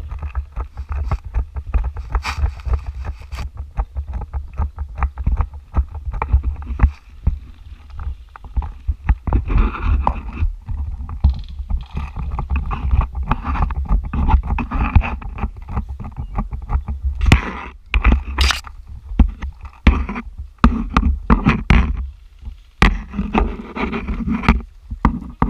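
A steady low rumble of wind or handling on the microphone, with many short, sharp clicks and knocks over it, coming thickest about two thirds of the way through.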